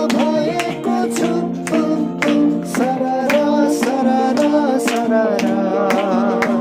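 A group singing an upbeat Christmas carol to strummed acoustic guitar, with a steady beat.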